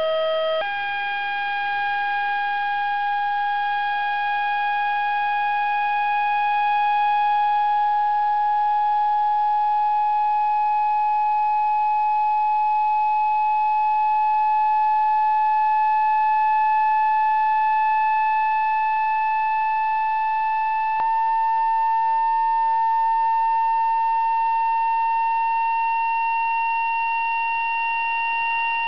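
A tambourine membrane driven by an electrodynamic shaker fed from a signal generator gives off a steady, siren-like tone with overtones. Its pitch steps up just under a second in, creeps slowly upward, and steps up again about twenty seconds in. The driving frequency is being swept through the membrane's modal frequencies, where the grains gather into Chladni figures.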